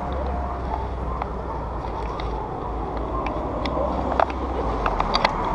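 Steady low outdoor background rumble, with a handful of sharp clicks from about four seconds in.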